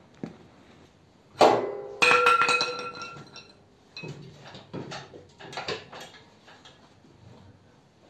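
Metal-on-metal clanks from a steel spike and hand tools worked against the engine and transmission. Two sharp strikes ring on briefly, about a second and a half and two seconds in, followed by lighter knocks and clinks.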